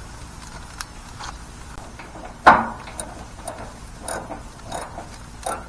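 Socket ratchet clicking in irregular strokes while tightening a bolt on a grill handle, with one sharp metal knock about two and a half seconds in.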